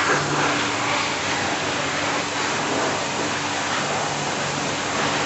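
Car-wash pressure washer running: a steady spray of water with a low motor hum that comes and goes.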